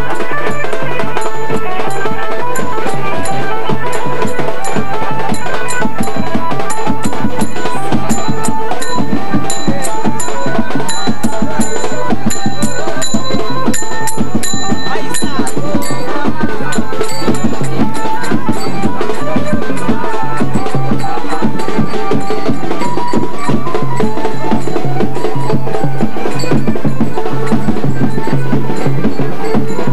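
Loud traditional music with drums and rapid, regular high metallic strikes.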